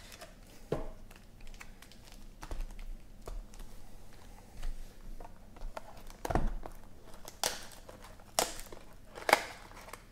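Topps Gold Label card pack wrappers crinkling and tearing open, with cards being handled and tapped together. It is a soft, irregular rustle with several sharper crackles in the second half.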